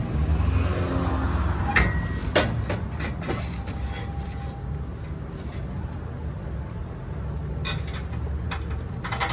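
Scattered light clicks and knocks of parts and tools being handled, over a steady low rumble.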